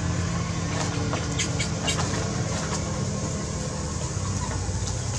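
A steady low engine hum, with a few faint clicks about one and a half to two seconds in.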